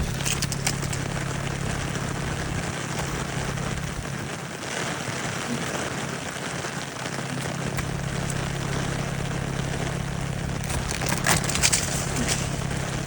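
Car engine idling steadily under a hiss, with a few crackling crunches of ice near the end.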